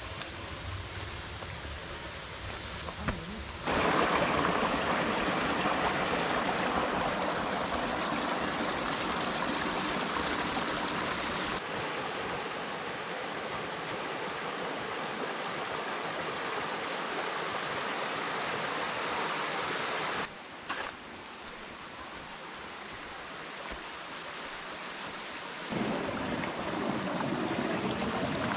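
Rushing water of a jungle stream or river, a steady wash of noise whose level jumps abruptly a few times. It is quieter for the first few seconds.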